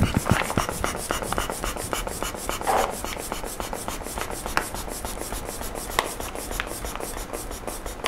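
Hand squeezing the rubber inflation bulb of a pressure-infusion bag over and over, pumping air into the pressure bag: rubbing and scraping of rubber and plastic with a few light clicks.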